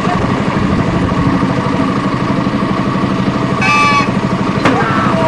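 Motorboat engine running steadily with a fast low pulse. A short high whistle sounds a little over three and a half seconds in, followed near the end by a click and rising and falling calls.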